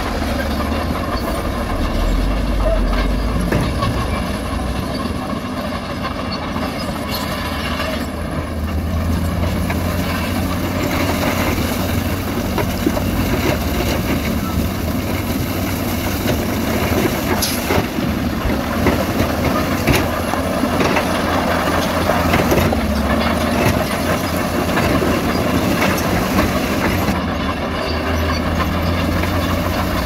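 Heavy diesel machinery running steadily: SHACMAN dump trucks and a wheel loader working, with a few short knocks and clatter over it.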